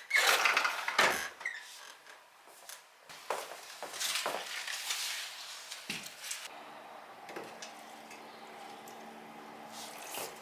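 Kitchen sounds: water splashing and dishes being handled, loudest in the first second or so, with a steady low hum starting about six and a half seconds in.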